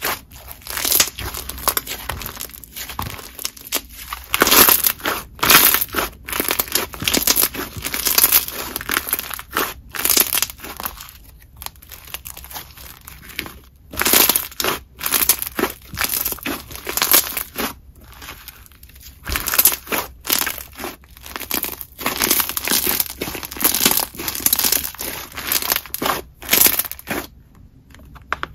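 Crunchy Play-Doh slime packed with bingsu beads and little geode-like add-ins being squished and kneaded by hand, giving a dense, irregular run of crackling crunches with a few short pauses.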